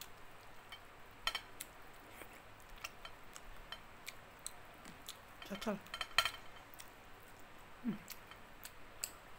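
Scattered light clicks and clinks of fingers picking at fried fish on a plate, with a couple of brief hums about halfway through and near the end.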